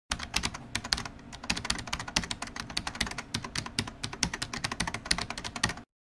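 Fast typing on a keyboard: a quick, irregular run of key clicks, several a second, that stops abruptly near the end.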